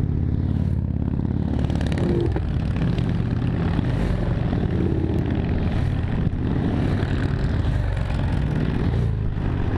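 Vehicle engines running with a steady low rumble.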